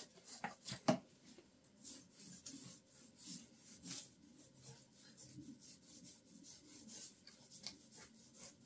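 Small paint roller rolling varnish onto a wooden cabinet front: a faint, soft, irregular rubbing, with a few sharp clicks in the first second.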